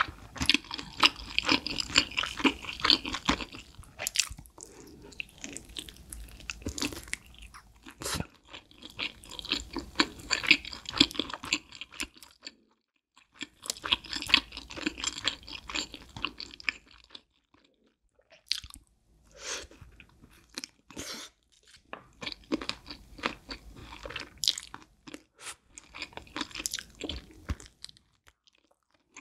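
Close-miked crunching and chewing of a crispy fried buffalo chicken wing, in bursts of several seconds with short pauses between bites.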